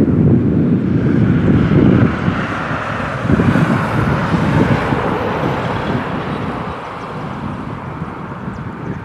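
Jet engines of a Boeing 777-200ER airliner at high power during its takeoff: a loud, steady rumbling roar, with wind buffeting the microphone. The sound slowly grows fainter over the last few seconds.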